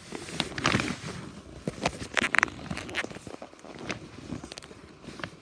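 Rustling and scratching on a fabric cat bed, with irregular clicks and a quick run of scraping strokes about two seconds in, as things move about in the bed.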